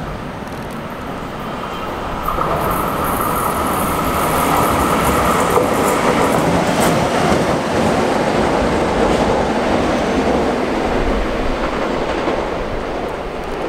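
Korail electric locomotive running light past the platform: a steady rumble of wheels on rail that swells about two seconds in, with a steady whine for several seconds while it is closest, then easing a little as it moves away.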